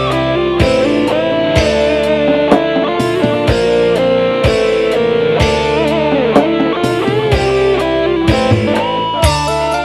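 Instrumental dangdut music in a slow, mellow style. A lead electric guitar plays a melody with bent notes over a sustained bass, and a drum beat lands about once a second.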